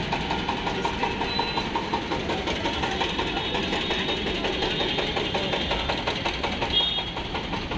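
Road traffic with vehicle engines idling and running, a steady mixed rumble.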